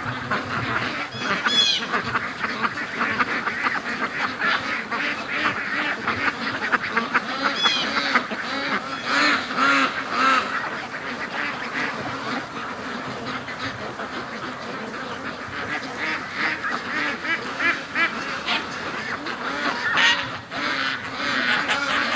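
A flock of domestic ducks quacking, many calls overlapping without a break, with louder flurries of calling a few times, most strongly about a third of the way in and again near the end.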